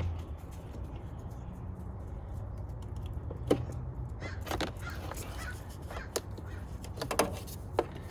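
Plastic wiring-harness connectors being worked loose and unplugged from the back of a car door panel: a few sharp plastic clicks and knocks, scattered and irregular, with a quick cluster near the end.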